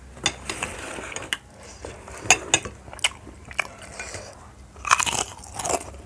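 Close-up crunchy biting and chewing of food: irregular crisp crunches, with a denser run of crunching about five seconds in.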